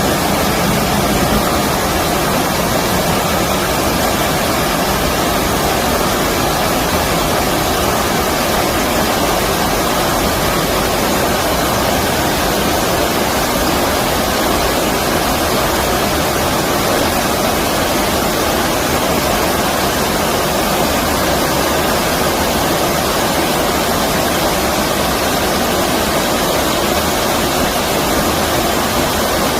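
Stream water rushing over a weir or shallow rapids: a steady, even noise without a break.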